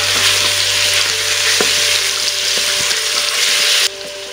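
Chicken pieces sizzling in hot butter in an Instant Pot's stainless inner pot on the sauté setting, with a plastic spoon knocking and scraping as they are stirred. The sizzle cuts off suddenly near the end.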